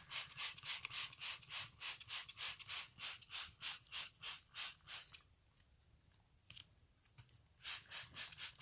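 Trigger spray bottle of Clorox pet urine remover squeezed rapidly, a quick run of short hissing sprays about four a second for some five seconds, then, after a pause, a few more sprays near the end, saturating a cat vomit stain on carpet.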